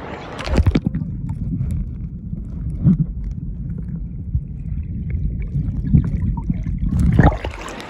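Water heard through a phone microphone dunked in a shallow tide pool: a splash as it goes under about half a second in, then a muffled low underwater rumble and gurgle with all the high sound cut off, and a splash as it comes back out near the end.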